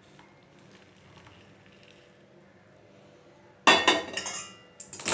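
Kitchen vessels and utensils clattering: a loud cluster of knocks and ringing clinks about three and a half seconds in, then another clink near the end, as the boiled herbal decoction is handled for straining.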